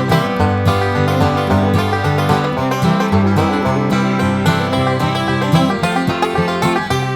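Background music: an upbeat bluegrass-style tune with a banjo and acoustic guitar over a walking bass line.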